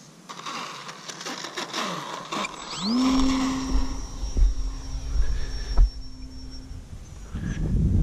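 The electric motor of an E-flite Valiant RC plane spools up on the runway about three seconds in, its whine rising quickly and then holding steady for about four seconds before dropping away: throttle-up for a touch-and-go. Before it there is a run of clicks and rustles, and toward the end gusty wind buffets the microphone with a loud low rumble.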